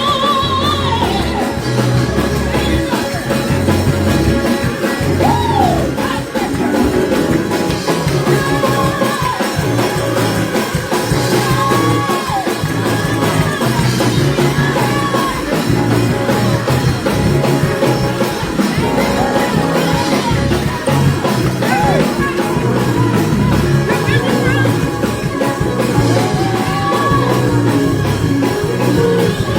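Band music with singing, carried by a strong bass line.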